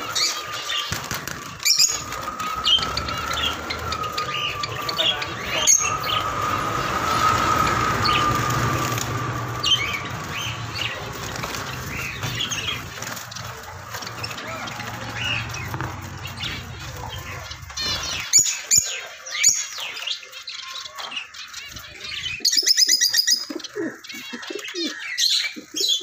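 A flock of caged society finches fluttering about and chirping: soft wingbeats and many short, high chirps, with a quick run of rapid calls near the end. A steady background hum with a faint whining tone runs under the first two thirds, then drops away.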